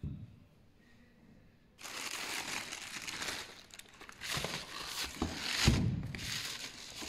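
Tissue wrapping paper from a shoebox crinkling and rustling as it is handled, starting about two seconds in, with a thump a little before the end.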